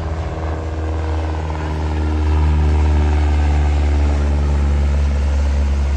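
Single-engine Cessna 172-type light plane flying overhead: its piston engine and propeller drone steadily with several pitched lines, getting louder over the first two or three seconds, then holding.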